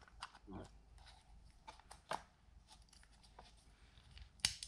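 Faint, scattered small clicks and taps of a battery being handled and fitted into a GoPro Hero 7 Black action camera, with a sharper click near the end.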